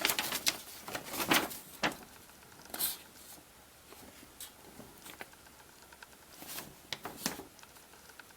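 A paper instruction booklet being handled and its pages turned: a few short rustles and flicks, a cluster in the first three seconds and two more near the end.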